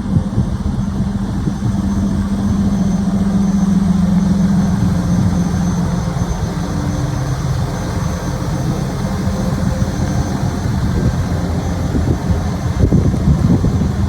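DAF LF260 lorry's diesel engine idling steadily. A steady hum from it drops away about six seconds in, leaving a lower running note.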